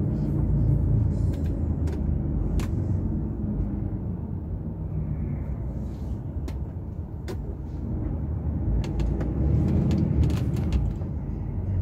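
DAF truck's diesel engine and road rumble, heard inside the cab, easing off through a roundabout and then pulling up again under a heavy load of over 40 tonnes. Scattered sharp clicks and knocks sound through it.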